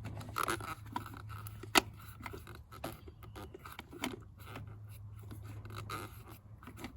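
Small clicks and scrapes of a hand screwdriver with a Torx bit snugging down the screws of a distributor cap, with one sharper click about two seconds in, over a faint steady low hum.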